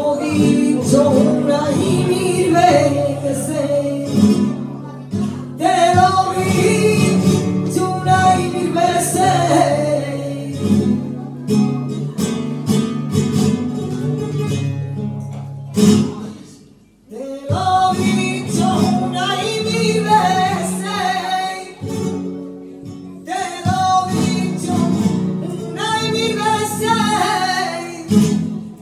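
A woman singing flamenco over a flamenco guitar, her line bending and wavering against strummed chords and sharp struck accents. Voice and guitar drop away briefly a little past halfway, then come back in.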